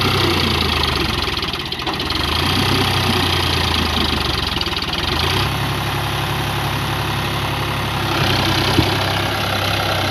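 Eicher 551 tractor's diesel engine running hard under load as the tractor strains to drive out of deep mud, its engine speed shifting a few times.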